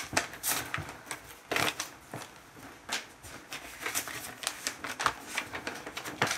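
A folded sheet of paper rustling and crackling as it is taken out and opened up, in a run of irregular crisp rustles.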